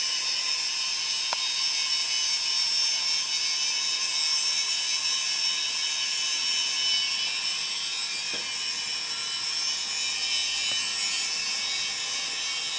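Steady high-pitched mechanical whir and hiss from a small motor, with a few faint clicks.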